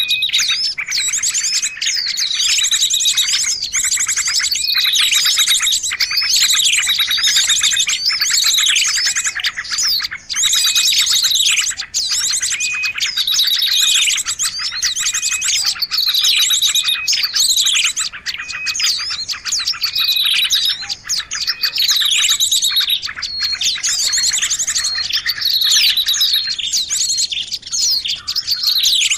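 Bird-lure recording of several small songbirds calling at once: a fast high trill under repeated down-slurred chirps that come back about every two seconds, continuous and busy.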